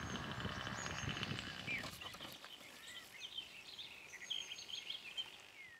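SC 25 two-stroke glow engine of a model plane running faintly at low throttle as it lands, fading out about two seconds in. Birds chirping in the background, most clearly near the end.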